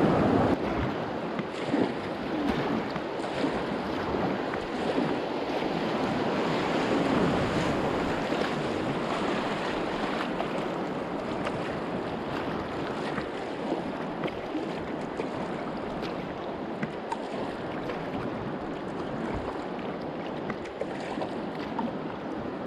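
River water rushing and splashing around a kayak, slowly growing quieter.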